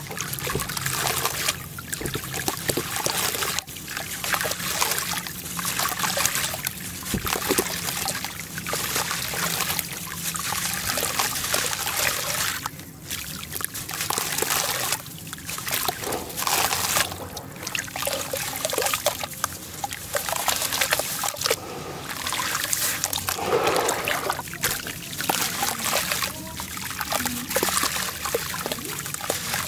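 A crumbly block of packed sand broken apart by hand into a tub of water, loose grit trickling and splashing into the water in long runs with short breaks.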